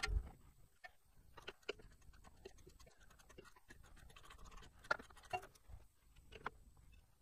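Faint, irregular metallic clicks and scrapes of a socket wrench tightening bolts on a steel bumper bracket, with a low knock at the very start.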